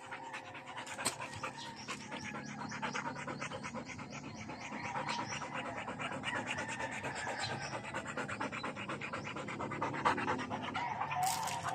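Dog panting rapidly and evenly close by, with a few sharper, louder noises near the end.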